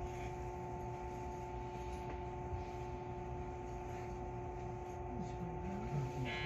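Steady electrical hum of a standing JR West 221 series electric train's onboard equipment, heard from inside the car, a few steady tones held over a low rumble.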